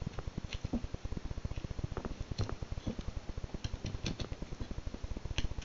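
Knife blade cutting into wood in short thumb-pushed carving strokes, each a brief dry scrape or tick, coming irregularly with a quick run of them a little after the middle. Under them runs a steady low pulsing hum, about ten pulses a second.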